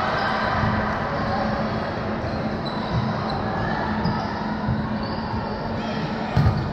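Indoor volleyball rally: the ball is struck several times in passes and sets, each contact a short smack, with the loudest hit about six seconds in. Players' voices echo around the large gym hall.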